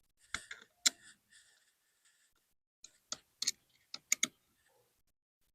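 Scattered sharp clicks and taps of hard plastic parts and tools being handled while a Hunter PGV sprinkler valve's top is fitted back onto the valve body. A few clicks come near the start and a quicker cluster comes a little past the middle.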